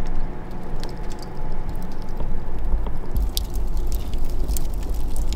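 Wood fire burning in a wood-fired pizza oven: scattered sharp crackles and pops over a steady low rumble, the pops coming thickest in the second half.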